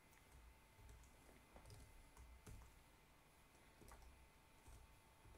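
Faint, irregular keystrokes on a computer keyboard as a spreadsheet formula is typed in, with a faint steady electrical tone underneath.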